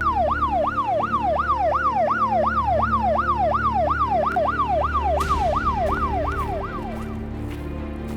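Siren sound effect: a fast repeating wail, each cycle jumping up and sliding down in pitch about three times a second, cutting off about seven seconds in.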